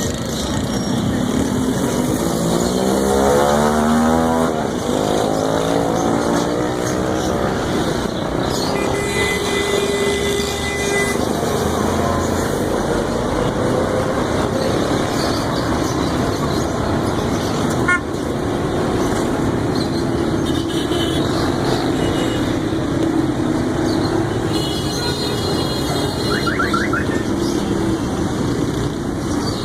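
Busy street traffic, a continuous din of passing vehicles. Early on a motorcycle engine revs up with rising pitch, and about nine seconds in a horn sounds for about two seconds.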